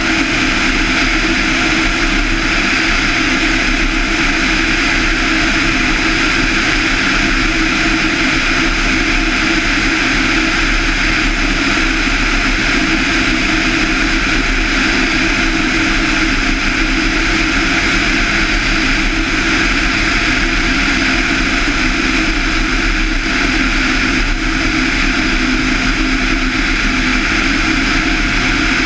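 Van's RV-7's 200 hp Lycoming IO-360-A1A four-cylinder engine and propeller running steadily in flight.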